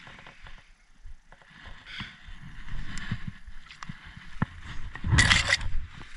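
Footsteps and the rustle of clothing and undergrowth as someone climbs up a brushy pond bank, with scattered small clicks and knocks. A louder brushing scuff comes about five seconds in.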